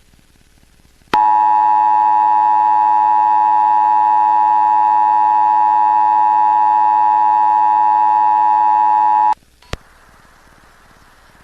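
Emergency Alert System attention signal: the two-tone alert (853 Hz and 960 Hz together) sounding loud and steady for about eight seconds. It starts about a second in and cuts off abruptly, followed by a single click and faint hiss.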